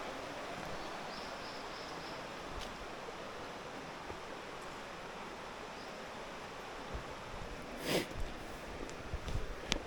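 Steady rush of a mountain stream, with a few faint high calls about a second in. A short loud brush of noise comes about eight seconds in, and a sharp click near the end.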